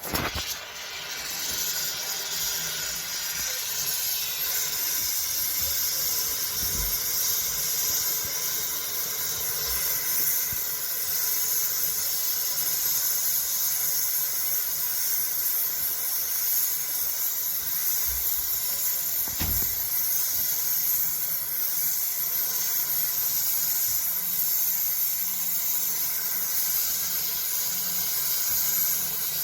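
Nitrogen gas hissing steadily as it is blown through an air conditioner's buried refrigerant piping to flush out debris. Two faint low knocks come about a third of the way in and again past the middle.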